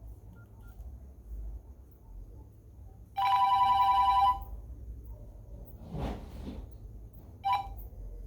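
Nokia N95 mobile phone playing a ringtone through its loudspeaker: a steady two-tone ring held for about a second a few seconds in, then a brief repeat of the same tones near the end, with a soft rustle between.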